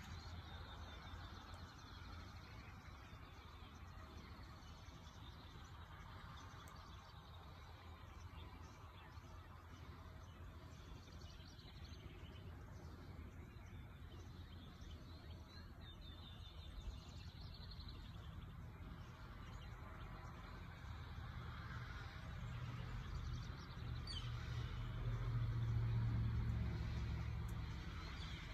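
Outdoor ambience: birds chirping on and off over a low rumble that swells to its loudest near the end.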